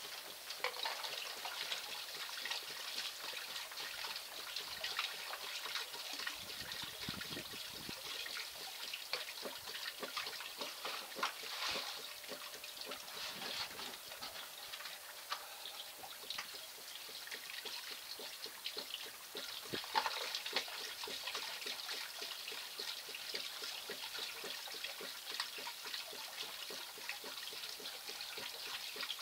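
Water poured by hand over wet gravel in a wooden box, splashing and trickling through into a plastic tub below, with many small clicks throughout.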